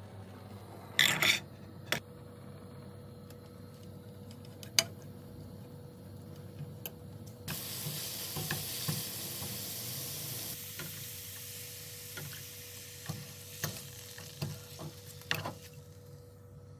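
Grated carrot frying in oil in a nonstick pan. The sizzling starts abruptly about seven seconds in and eases off after a few seconds, while a silicone spatula stirs and clicks against the pan. A few sharp knocks come before it.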